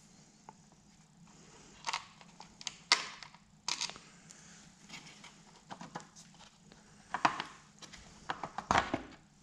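Small metal screws clinking together in a palm, with scattered sharp clicks and knocks as screws are worked out of a metal engine cover plate, a cluster of them near the end.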